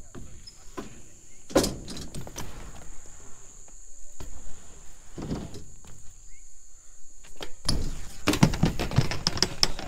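BMX bike riding the ramps: tyres rolling, with sharp knocks of landings about a second and a half in and again around five seconds. Near the end comes a dense clatter of impacts as the bike goes down on the ramp in a bail.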